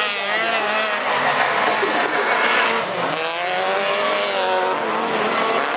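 Several race-car engines revving hard together, their pitches rising and falling as the cars accelerate and change gear.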